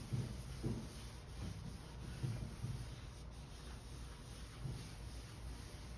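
Cotton t-shirt rag rubbing over a beeswax-coated, chalk-painted wooden drawer front in soft, irregular strokes, wiping off the excess wax.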